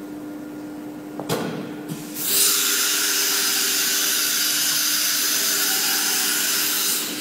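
CNC router's automatic tool-change spindle changing to the next tool: two sharp clicks, then a loud steady hissing whine for about five seconds that cuts off suddenly.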